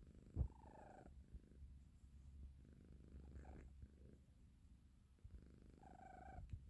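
Exotic shorthair kitten snoring softly: a faint, steady low rumble, with a brief higher-pitched tone on the breath about half a second in and again near the end.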